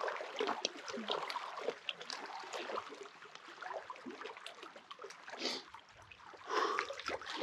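Lake water trickling and lapping at the shore, with scattered small clicks and rustles, and two slightly louder splashy moments near the end.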